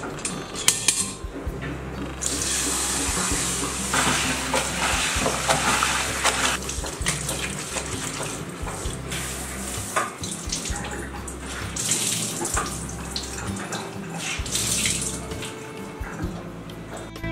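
Tap water running and splashing into a stainless steel sink and steel bucket as a kitchen cloth is rinsed and wrung out, starting about two seconds in and easing off and returning several times, with scattered small knocks.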